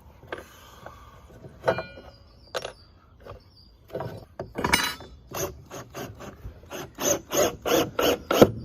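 Hand-tool work on a wooden frame: a few scattered knocks, then from about halfway a fast, even run of short rasping clicks, about four a second, growing louder near the end.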